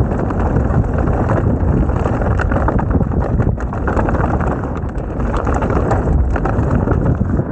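Mountain bike running down a dirt bike-park trail: steady wind noise on the microphone, with tyres rolling over the ground and many small knocks and rattles from the bike over bumps.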